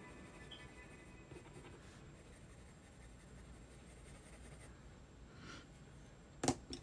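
Ink pen scratching faintly across sketchbook paper while drawing over an outline. A sharp knock comes near the end.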